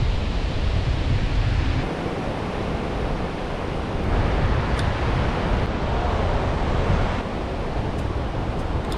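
Ocean surf washing onto a beach, with wind rumbling on the microphone. The sound shifts abruptly about two seconds in, where the low rumble drops.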